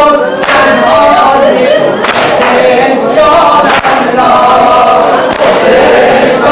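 A crowd of many voices chanting and reciting together, loud and continuous, with the voices overlapping rather than in one clean unison.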